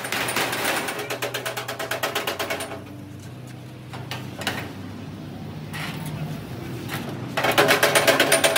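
Rapid hammering on metal in two fast runs of ringing strikes, about ten a second, with a few single knocks between them and a steady low hum beneath.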